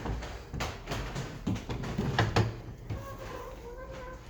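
Several knocks and clunks from an old phone booth's door being handled, the loudest a close pair about two seconds in, then a faint steady hum from about three seconds in.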